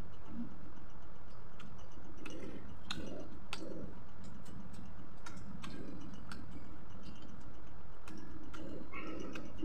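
A person chewing fried chicken with the mouth open: irregular wet smacking and clicking mouth sounds over a steady low background noise.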